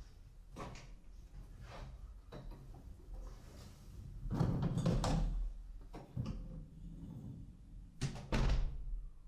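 Footsteps and a rolling suitcase being moved, a door opening about midway, then the door shut with two sharp knocks near the end.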